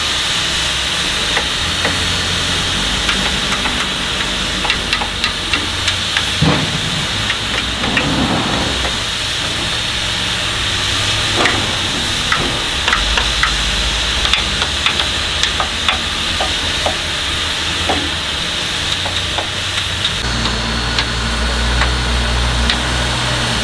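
Steady hiss of steam from a narrow-gauge steam locomotive standing steamed up, with scattered sharp metallic clinks and taps as crew work on its front end. About 20 seconds in, a diesel front-end loader's engine starts idling low in the background.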